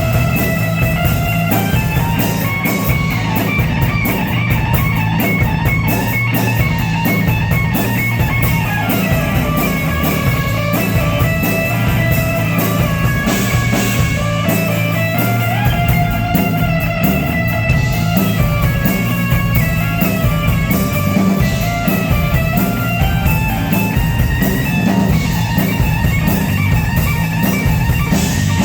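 Rock band playing an instrumental passage: electric guitar lines over bass and a drum kit, continuous and loud.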